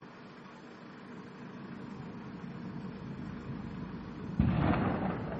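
A steady low rumble, then a sudden loud boom about four and a half seconds in that fades over about a second: the controlled detonation of a roadside bomb.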